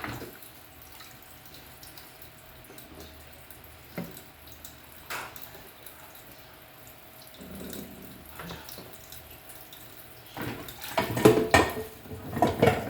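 Tap water running gently into a kitchen sink as a toddler washes plates, with a few knocks, then louder clattering near the end.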